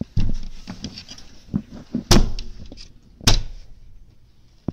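Knocks and bangs on a hotel room door: a few light knocks, then two loud bangs about a second apart.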